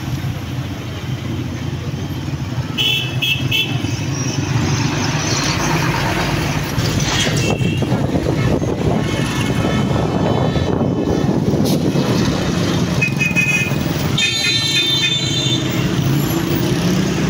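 Busy city road traffic heard from a moving bus: a steady low engine rumble with vehicle horns tooting again and again, some in quick short runs and one longer blast near the end.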